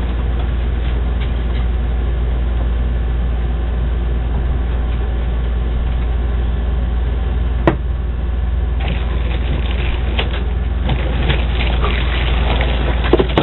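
A steady low hum throughout, with a single click about eight seconds in. In the last few seconds comes crinkling and rustling as plastic-wrapped items in a cardboard shipping box are handled.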